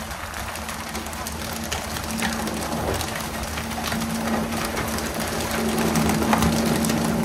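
Working tuna boat at sea: the engine runs with a steady hum under a constant hiss of water spray and sea. Crew voices call out, and short sharp knocks come now and then.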